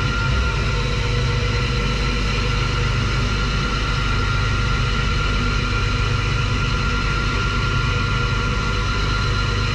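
Steady hum of a machine motor running at a constant speed, with a strong low hum and a steady higher whine.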